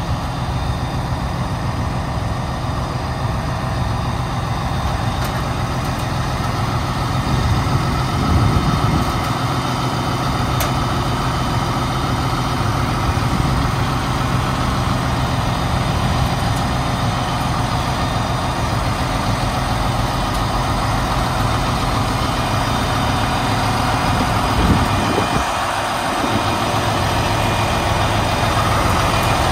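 Heavy diesel engine running steadily at idle, with brief louder sounds about a third of the way in and again near the end.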